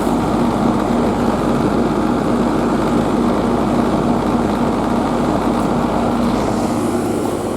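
Steady mechanical running noise, a motor or engine drone with a constant hum, which shifts slightly near the end.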